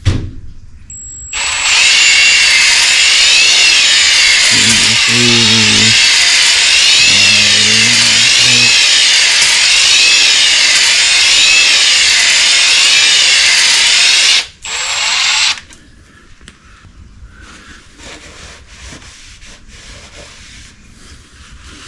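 Power drill spinning a dingle ball (flexible ball) hone in an engine cylinder bore of a Ford Focus engine, re-honing the walls to restore the crosshatch. It runs for about thirteen seconds with a whine that wavers up and down in pitch, stops, then runs again for about a second.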